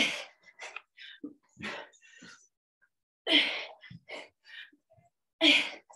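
A woman breathing hard from exertion: short, forceful breaths coming about every second, the loudest about three and a half and five and a half seconds in.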